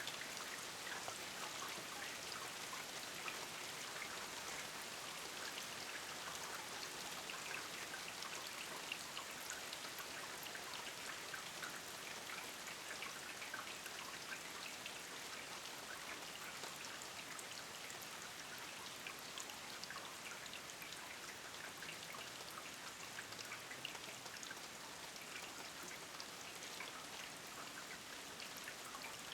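Steady rain falling, an even hiss filled with many small patters of individual drops.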